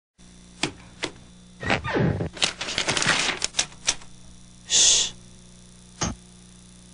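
Cartoon sound effects for a TV station ident: two sharp clicks, then a rapid clatter of clicks and knocks like typing. A short shushing hiss follows, and a single light-switch click near the end.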